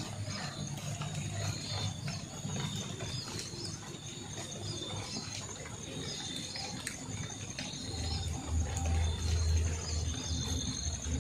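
Forest insects chirping and trilling steadily in high, repeated calls. A low steady hum swells in about eight seconds in.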